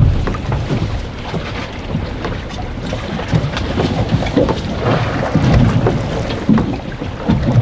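Strong wind buffeting the microphone on an anchored boat, a steady low rumbling hiss, with scattered small knocks and clicks throughout.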